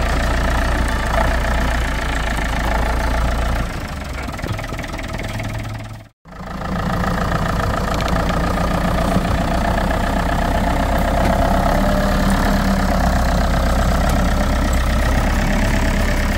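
Diesel engine of a 1981 Case 995 David Brown 58-horsepower tractor running steadily at idle. The sound breaks off for an instant about six seconds in, then carries on the same.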